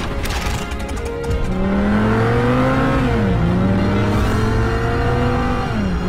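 Audi R8 Spyder's engine accelerating hard, its pitch climbing from about a second and a half in and dropping at two upshifts, one midway and one near the end.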